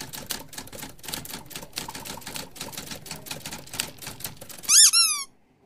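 Typewriter typing sound effect: a fast run of sharp key clicks, several a second. About three-quarters of the way through, the clicks stop and two quick high chirps follow, each sliding up and then down in pitch.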